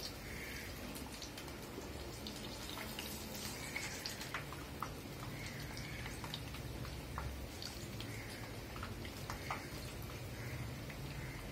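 Urad dal vadas deep-frying in hot oil, the oil sizzling steadily with a scatter of small irregular pops and crackles.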